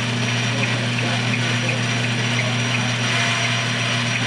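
Metal lathe running steadily while turning down a block of aluminum, a constant motor hum with the hiss of cutting.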